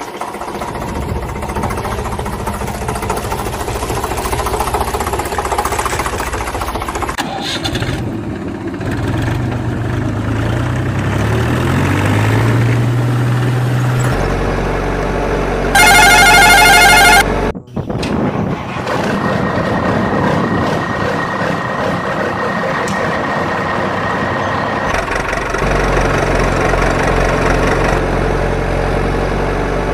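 Engine sound effects for the toy vehicles, changing from one engine to another several times, with a rev that climbs in pitch in the middle. About sixteen seconds in there is a short, loud warbling tone.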